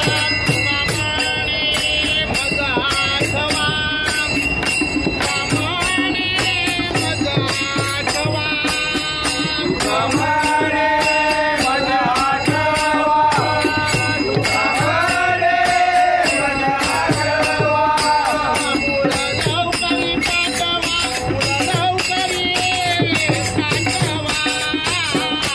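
Male voices singing a devotional Marathi bhajan, with small brass hand cymbals (taal) struck together in a steady rhythm.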